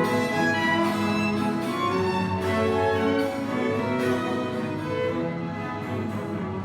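Small string ensemble, violin and cello among them, playing bowed music with long held notes. The playing eases off near the end.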